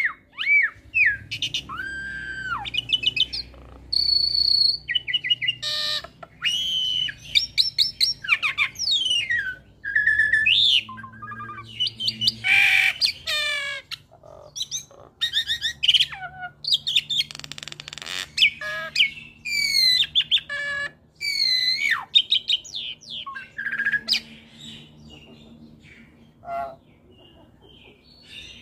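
Hybrid Asian pied starling × Nias hill myna (jalak suren × jalak Nias) singing a varied, chattering song of whistles, rising and falling glides and quick harsh rattling notes, thinning to scattered calls near the end.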